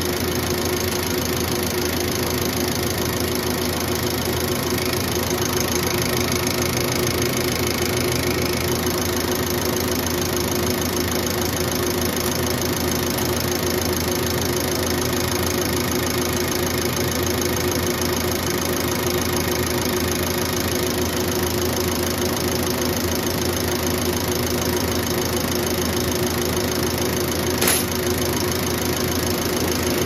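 Bosch VA diesel injection pump running steadily on a Hartridge AVM2-PC test bench, the bench motor driving it at constant speed during calibration, with a steady hum under the mechanical clatter. A single sharp click near the end.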